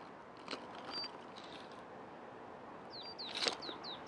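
A bird calling: one short high whistle about a second in, then a quick run of about six high chirps, each dropping in pitch, near the end. Two sharp clicks, the louder one among the chirps, over a steady outdoor hiss.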